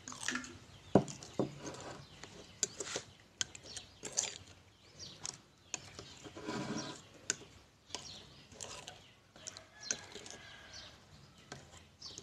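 Metal spoon stirring a bowl of watery wood-ash and crushed-eggshell mixture, clinking and scraping against the ceramic bowl in scattered clicks. A short, louder animal call comes about two-thirds of the way through.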